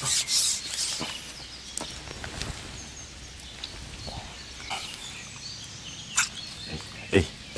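Brief wet rustling and splashing as a just-landed small common carp is handled, then a quiet outdoor background with scattered small clicks, faint bird chirps and a short knock near the end.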